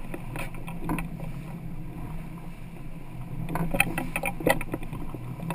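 Boat engine running with a steady low hum, and a quick run of sharp knocks and clatter about two-thirds of the way through.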